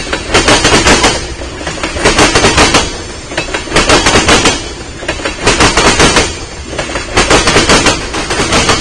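Freight train tank cars rolling past, their steel wheels clattering over the rails in quick clusters of clacks about every one and a half to two seconds, one cluster per car, over a steady low rumble.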